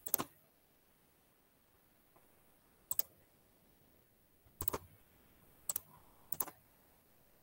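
Scattered sharp clicks of a computer mouse and keys while screen sharing is switched on a video call: a double click at the start, a single click about three seconds in, then several more in quick succession a little later.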